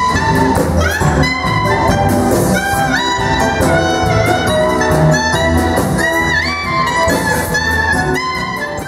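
Jewish folk-rock band music with a lead melody that slides between notes over a full band. It fades out near the end.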